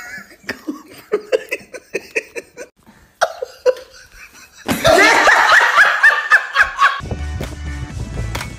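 People snickering in short bursts, then laughing loudly. About seven seconds in, music with a steady beat takes over.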